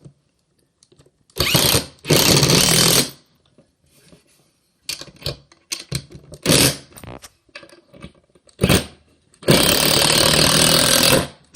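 Power drill with a Phillips bit driving screws into wood panels in several bursts. There are two runs near the start, shorter ones in the middle, and a longer run of about two seconds near the end, with small clicks of handling in between.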